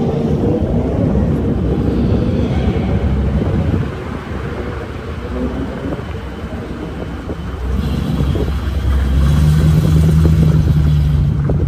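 Car driving on city streets, heard from inside: steady low engine and road rumble that eases off about four seconds in and swells again near the end, with a steady low engine drone.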